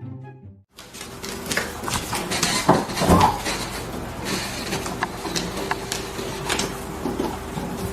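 Background music cuts off in the first second; then a run of sharp clicks and clattering, like dishes or hard objects knocking, over a faint steady hum, with the loudest knocks about three seconds in.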